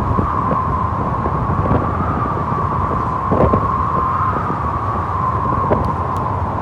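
Motorcycle riding at a steady speed: engine and road noise with wind rushing over the microphone and a steady hum.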